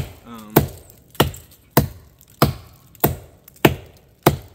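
Forest axe chopping into the trunk of a dry, long-dead Virginia pine while cutting the face notch: about eight sharp, evenly paced strikes, a little under two a second.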